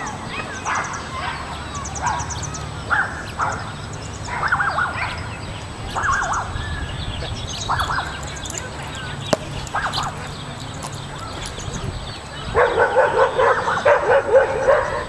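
A dog barking at intervals, then a fast run of excited barks and yips near the end.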